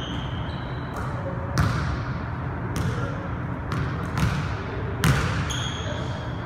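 A basketball bouncing on a hardwood gym floor, about eight irregular bounces that echo in the big hall. A brief high sneaker squeak comes near the end.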